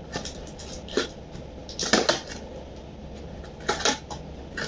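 A knife cutting the packing tape and cardboard of a box: three short scraping strokes, about a second in, about two seconds in (the loudest) and near the end, with small ticks and rustles of the box between.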